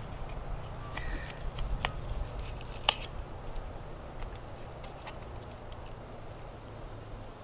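Knife and fork clicking and scraping on a plate while cutting meat, with two sharper clinks about two and three seconds in.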